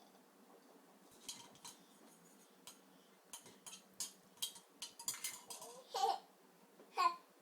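A run of light clicks and clinks, then two short babbling sounds from a baby near the end.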